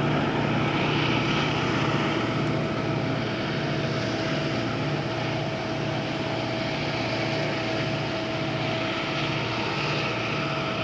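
Two Canadian Pacific diesel locomotives working hard as pushers at the rear of a heavy coal train on an upgrade: a steady engine drone with a low, rhythmic throb and a steady whine, slowly fading a little as they pull away.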